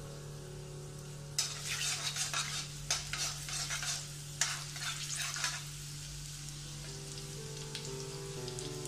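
Chopped garlic sizzling in hot oil in an iron kadai on high flame, with a metal slotted spatula stirring and scraping against the pan in quick strokes from about a second and a half in until a little past halfway. A steady low hum runs underneath.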